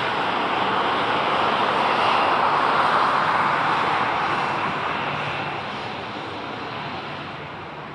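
Boeing 737-800's CFM56-7B turbofan engines running at taxi power as the airliner taxis past. The steady jet rush swells about two to three seconds in, then fades as the aircraft turns away.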